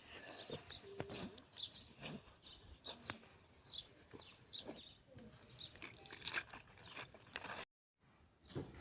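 Small birds chirping in short repeated notes, with scattered soft knocks and clicks. The sound cuts out completely for a moment near the end.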